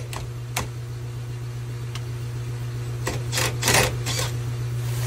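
Scattered sharp clicks and knocks of parts being handled in a UTV cab, with a quick cluster of them about three to four seconds in, over a steady low hum.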